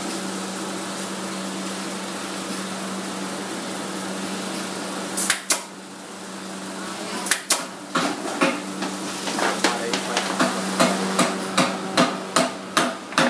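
Steady hum of an electric bench machine in a shoe workshop. About five seconds in come two sharp knocks, then from about seven seconds in a regular run of sharp knocks, two or three a second.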